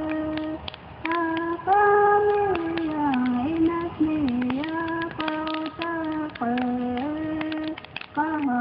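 A single high voice singing a slow melody of long held notes, sliding down and back up between them, with short breaks.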